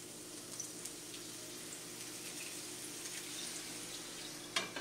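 Water sizzling and crackling in a hot nonstick frying pan around soufflé pancakes, a steady hiss with scattered small pops. A single sharp clack near the end as a lid is set over the pan.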